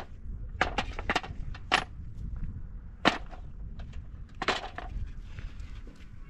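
Rocks dropped one by one into a metal bucket, about six sharp knocks at uneven intervals.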